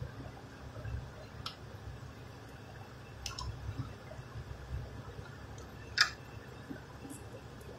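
A few sharp clicks and taps of tools and engine parts being handled during the dismantling of a V8 engine's intake, the loudest about six seconds in, over a low rumble.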